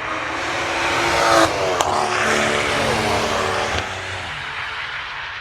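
Turbocharged BMW straight-six car driving past at speed: the engine note climbs and grows louder as it approaches, then drops in pitch and fades as it goes by, with one sharp crack about two seconds in.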